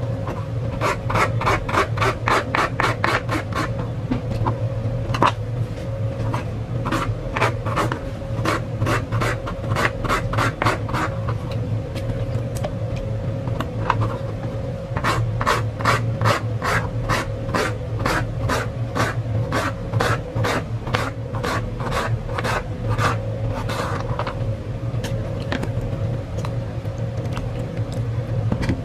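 Paring knife scraping the skin off a sweet potato in runs of quick, even strokes, about five a second, with pauses between the runs. A steady low hum sits underneath.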